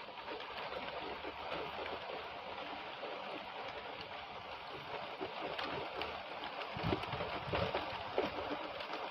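Heavy rain pouring down steadily in a downpour, an even hiss of falling water, with a few low thumps about two thirds of the way through.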